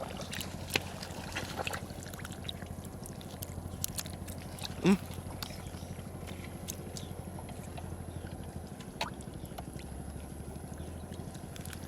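Light trickling and gurgling water with scattered small clicks over a steady low hum. About five seconds in there is one short, louder sound that falls in pitch.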